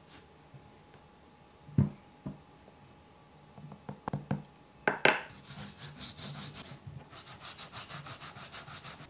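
A thump and a few knocks, then from about halfway on, coarse salt being scrubbed by hand over a kabocha pumpkin's skin on a wooden cutting board: quick, rhythmic rasping strokes.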